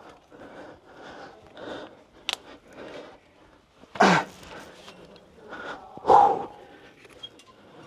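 A rock climber breathing hard in short, even puffs about twice a second, then letting out two loud grunts of effort about four and six seconds in. There is a single sharp click in between.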